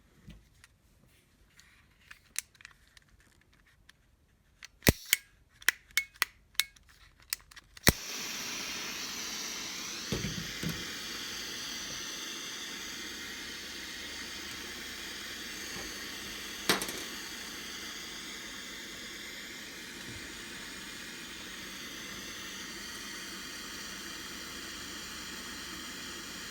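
Bernzomatic butane soldering torch: a quick run of sharp igniter clicks, then about eight seconds in the flame catches and burns with a steady hiss.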